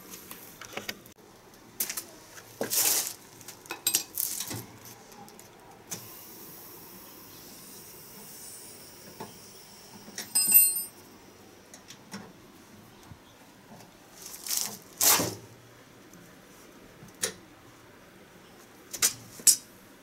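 Small metal clinks and scrapes with cloth rustling as valve caps and a hex wrench are handled at an air-conditioner outdoor unit's service valves. About ten seconds in there is one sharp, ringing metal clink.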